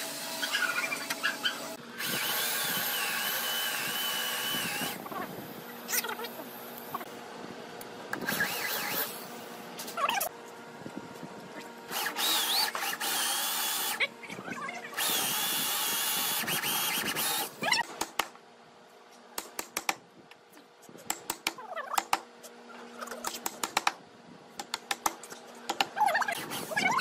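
Electric drill boring into red hardwood in three runs of a few seconds each, with a steady whine. In the second half, a chisel is driven with a mallet to chop out a mortise: many sharp knocks in quick, uneven series.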